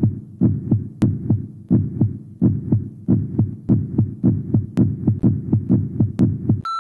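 Heartbeat sound effect: a steady run of low thuds in lub-dub pairs, about three thuds a second, with a few sharp clicks. A steady electronic beep starts right at the end.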